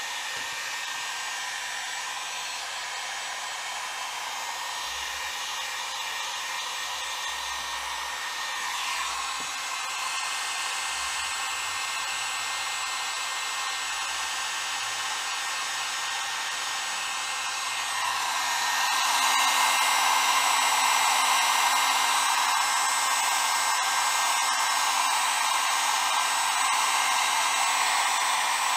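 Electric heat gun running steadily, blowing hot air to shrink heat-shrink tubing onto a bolt. It is a steady rush of air with a fan whine, and it gets louder about two-thirds of the way through.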